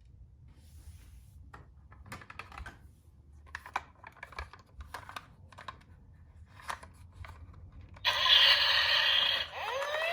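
Faint scattered plastic clicks and clatters of toy minicars being handled. About eight seconds in, a loud rushing noise starts. Near the end a toy car's electronic siren sound begins with a rising wail.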